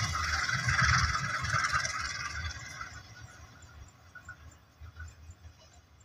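A train with a locomotive and wagons rolling away along the track, its wheel noise fading out over the first three seconds. A low, uneven rumble stays on afterwards.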